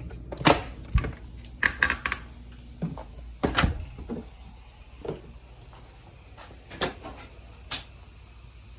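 A series of irregular knocks and clicks, like hard objects or doors being handled. They are loudest and closest together in the first four seconds and grow sparser after that.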